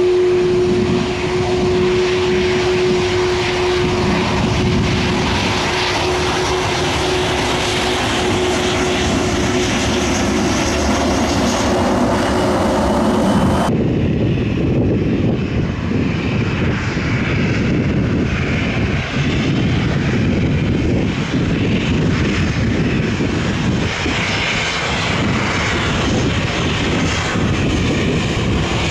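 Airliner engines running loud and steady as an aircraft passes. About fourteen seconds in, the sound changes abruptly to a duller, deeper rumble.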